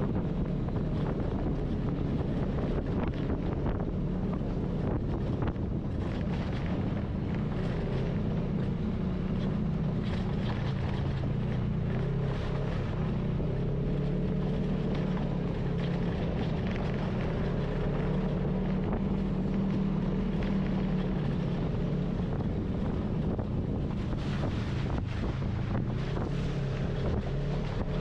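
Polaris RZR side-by-side engine running steadily under way, its pitch drifting slightly with speed, with wind noise on the microphone and small knocks from the trail.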